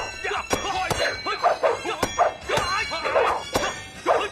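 Dubbed fight sound effects: a rapid run of sharp hits and whooshes, about two a second, with short shouts and grunts from the fighters between them.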